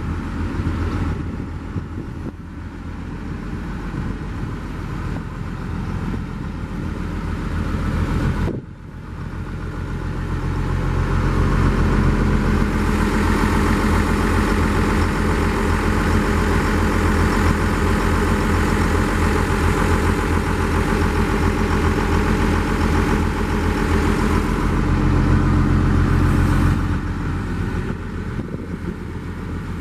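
Daewoo DH130 excavator's diesel engine running steadily. After a short break about eight seconds in, it grows louder and holds there for a long stretch, then drops back near the end.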